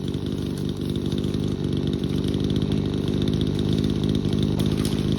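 Chainsaw's two-stroke engine running steadily, without revving.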